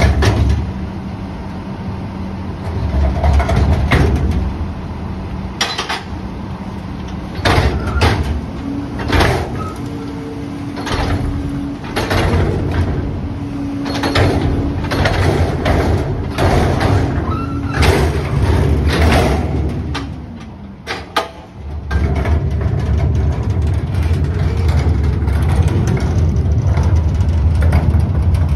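Heil rear-loading garbage truck's diesel engine running under load while its cart tipper lifts a wheeled steel dumpster, with a run of sharp metal clanks and bangs as the bin is knocked to empty it. Near the end the engine rumble grows steady and louder.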